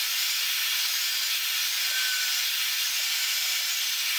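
Magnetic drill with an annular cutter boring through a steel flat bar: a steady, even hiss-like whir with no clear motor pitch.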